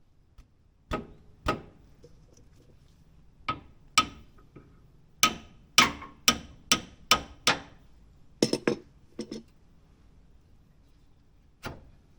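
Hammer striking metal, about sixteen sharp blows in irregular groups, some quick runs of strokes, each with a brief metallic ring.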